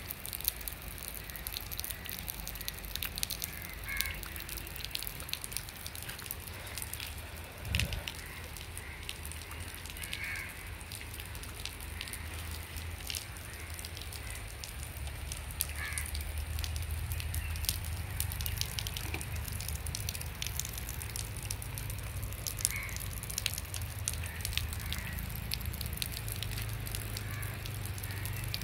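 Light rain pattering outdoors, with many scattered drop clicks and a low steady rumble that grows stronger in the second half. There is a single thump about eight seconds in.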